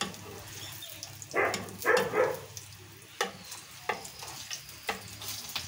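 Torrejas sizzling in oil in a frying pan, hot enough that they are starting to scorch, with a metal spoon clicking and scraping against the pan several times as the pieces are turned.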